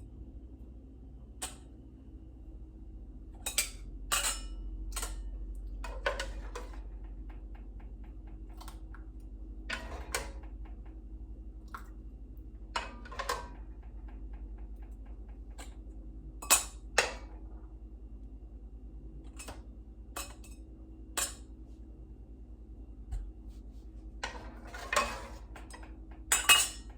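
Glass canning jars and metal kitchen utensils clinking and knocking irregularly while hot jam is ladled into half-pint jars, over a steady low hum.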